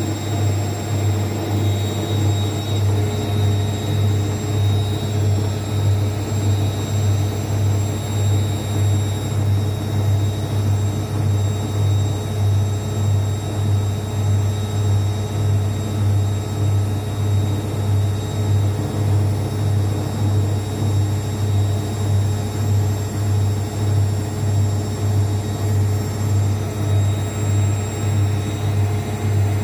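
Zanussi ZWSE680V front-loading washing machine in its final high-speed spin, the drum running on freshly repaired shock absorbers. It makes a steady, strong hum with a faint high whine, swelling and dipping about once a second as the drum turns.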